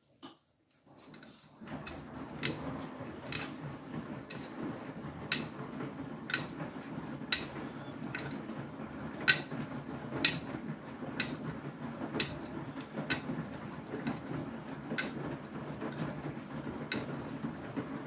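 Beko WTK104121W front-loading washing machine tumbling a wet load on the main wash of its Dark Care programme. The drum starts turning about a second in, with a steady churning of wet clothes and water and a sharp click about once a second as it turns.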